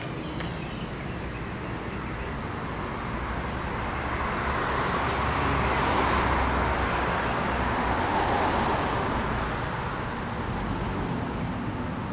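Road traffic noise: a car passing on the street, its sound swelling to a peak around the middle and then fading away.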